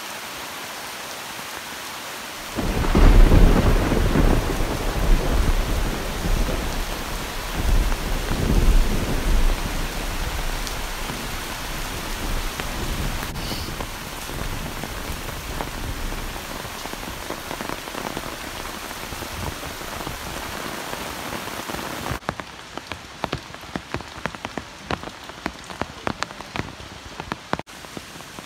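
Heavy rain falling steadily, with a rumble of thunder rolling in about two seconds in, swelling again a few seconds later and dying away. Near the end the rain turns to a lighter patter of separate drops striking leaves close by.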